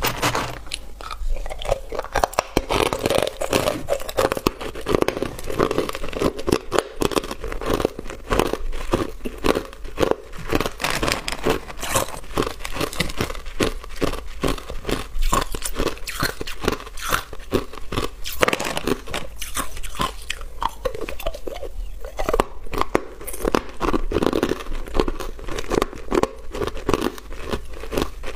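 Hard clear ice chunks being bitten and chewed, a dense run of rapid, sharp crunches that keeps going throughout.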